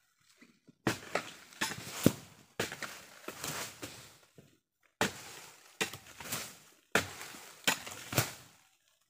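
Footsteps crunching through dry fallen oil palm fronds and leaf litter, in about six uneven bursts with sharp cracks of snapping fronds, the loudest about two seconds in.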